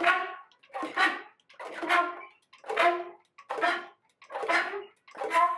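Flute playing breathy, airy notes, mostly rushing air with a faint pitched tone inside. They come as short pulses about once a second, about seven in all, each swelling and fading quickly.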